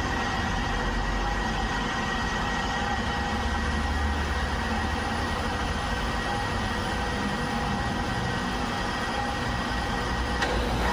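Metal lathe running with its chuck spinning: a steady machine hum with several held tones, and one short click near the end.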